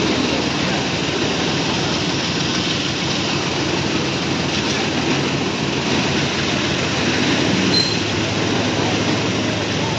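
Freight train of tank wagons rolling steadily past over a level crossing, a continuous rumble of wheels on rail. A brief high squeal about eight seconds in.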